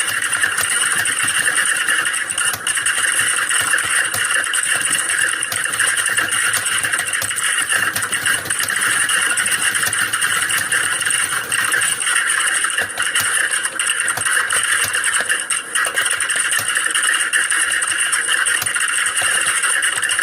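Many computer keyboards being typed on at once, as in a typing-test exam hall: a dense, continuous clatter of key clicks with no pauses.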